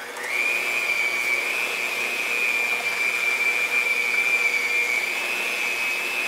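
Electric hand mixer running, its beaters churning cream cheese, sweetener and oil for a frosting. The motor's whine rises as it speeds up right at the start, then holds steady.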